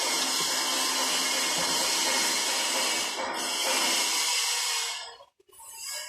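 A loud, steady hissing whir from a tool or machine, with a faint whine in it, cutting off suddenly about five seconds in.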